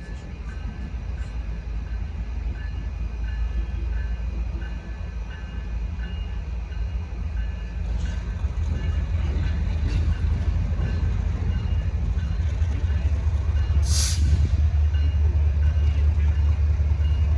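An approaching BNSF train: the deep rumble of the locomotives grows steadily louder, with a brief sharp hiss about three-quarters of the way through.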